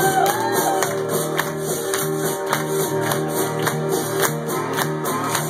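Live band music: strummed acoustic guitar and electric bass with a steady beat of percussion, including a chest-worn washboard (frottoir) scraped and tapped in rhythm.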